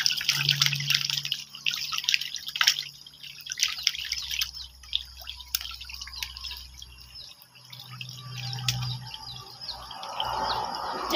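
Water splashing and popping as a crowded school of fish thrashes at the surface taking feed, a dense crackle of small splashes and drips, busiest in the first few seconds. A low hum comes and goes underneath.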